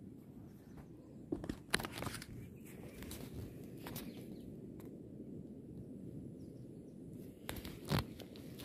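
Footsteps crunching on dry grass, with scattered sharp crackles, a cluster about a second and a half in and the loudest near the end, over a low steady rumble.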